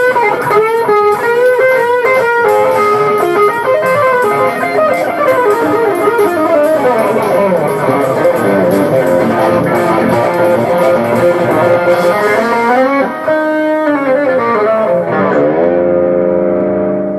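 Jazz fusion played on guitar: quick melodic runs, then a final chord held from about fifteen seconds in and left to ring out.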